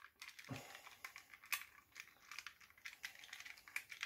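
Faint, irregular small clicks and rustles of hard plastic toy parts being handled, as the feet of a G1 Transformers Soundwave figure are flipped out into place.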